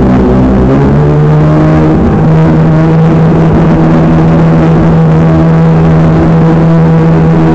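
Radio-controlled model speedboat's motor running flat out, loud and close, its pitch settling about a second in and then holding steady, over the rush of water.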